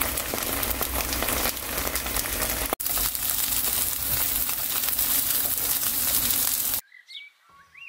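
Tofu cubes frying in oil in a pan: a steady, dense sizzle with fine crackles. It breaks for a moment near three seconds and cuts off suddenly about a second before the end.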